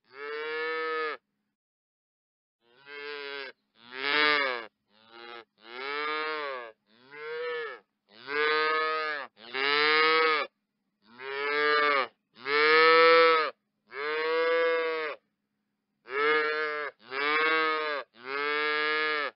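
Cow mooing over and over: about fourteen short moos, each rising then falling in pitch, separated by silent gaps, with a longer pause about two seconds in and another near the end.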